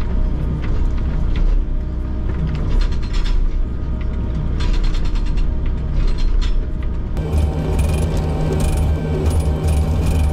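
Hydraulic breaker on a Volvo excavator hammering concrete piles in spells of rapid blows over the machine's steady engine hum. About seven seconds in, the sound changes abruptly to a closer, brighter hammering.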